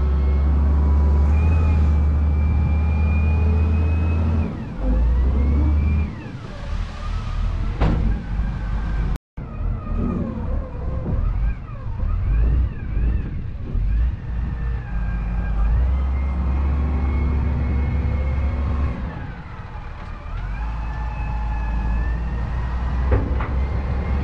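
Heavy construction machinery working: diesel engines rumbling under load that rises and falls, with hydraulic whines gliding up and down in pitch. The sound drops out abruptly for an instant about nine seconds in, then a wheel loader's diesel engine and hydraulics carry on.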